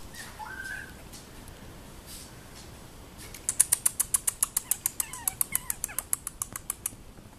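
Chihuahua puppies play-fighting, one giving a short high squeak near the start and faint squeaky whines later. From about three seconds in comes a rapid run of sharp clicks, about seven a second, lasting some three and a half seconds.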